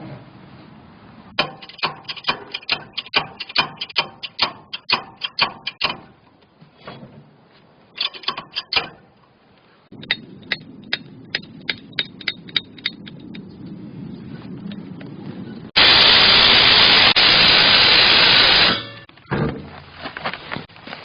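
Rapid series of sharp clicks and knocks, about four or five a second, in several runs, then a loud steady rushing noise lasting about three seconds near the end.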